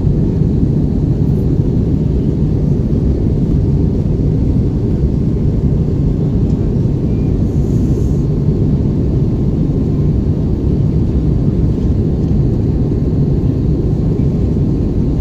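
Steady, low cabin rumble inside an Airbus A320 airliner in flight, even and unchanging throughout.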